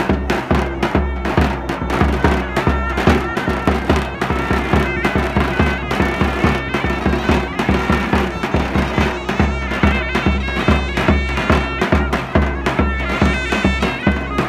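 Loud folk dance music: a shrill reed wind instrument plays a melody over a steady drone, driven by a fast, regular, heavy drum beat.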